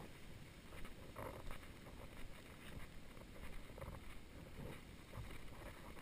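Wind rumbling on the microphone of a camera carried at walking pace, with faint irregular knocks from footsteps on a sandy path.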